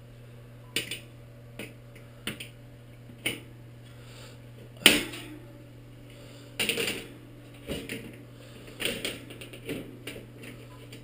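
Return-air filter grille being handled and fitted over its opening: irregular clicks, taps and knocks of the grille and its frame, the loudest about five seconds in and a few quick rattling clusters later, over a steady low hum.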